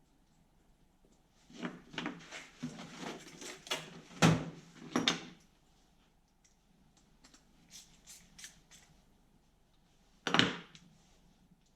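Small carburetor parts being handled and fitted together on a workbench: a few seconds of clicking and clattering, some faint ticks, then one sharp knock near the end.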